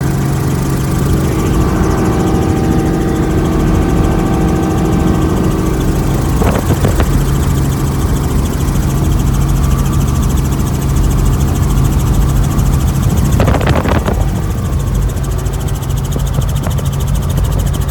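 Helicopter engine and rotor drone, loud and steady throughout. Twice, about a third and three-quarters of the way in, a short higher-pitched sound rises over it.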